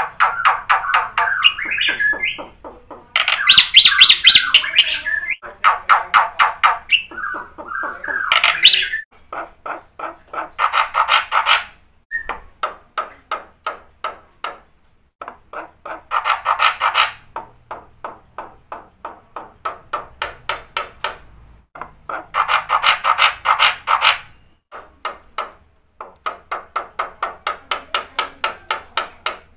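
Black-winged myna (jalak putih) singing in full voice: phrases of rapidly repeated sharp notes, about four or five a second, broken by short pauses.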